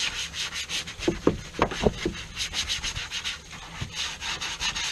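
Hard-bristle brush scrubbing wet vinyl boat upholstery in quick back-and-forth strokes, about four a second, with a few short squeaks between one and two seconds in.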